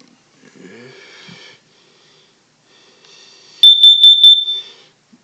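Kidde carbon monoxide detector sounding its test alarm: four quick, loud, high-pitched beeps about three and a half seconds in.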